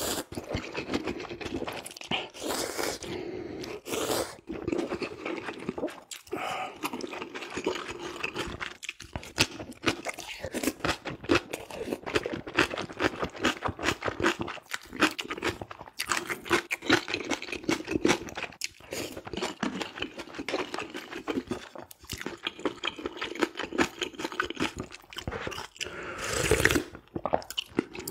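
A person eating ramen: slurping noodles in the first few seconds, then wet chewing with many small mouth clicks, and a loud slurp of broth from a ladle near the end.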